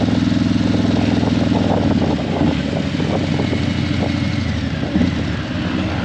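Harley-Davidson Breakout 117's Milwaukee-Eight 117 V-twin running through Vance & Hines Eliminator 300 slip-on mufflers. It holds a steady drone, then about two seconds in drops a little in level to a choppier, uneven beat.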